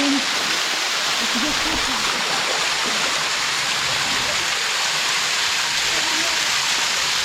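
Steady rushing of water falling over a small waterfall into a creek, even and unbroken.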